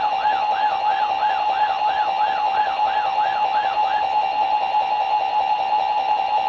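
Weather alert radio's built-in alarm going off as a required monthly test is received: a warbling tone rising and falling about three times a second over a fast-pulsing beep. The warble stops about four seconds in, and the pulsing beep carries on.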